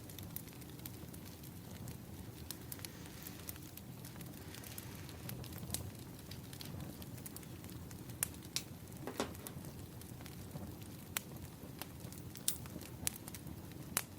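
Wood fire crackling: a steady low rumble of burning logs with scattered sharp pops, one stronger pop about nine seconds in.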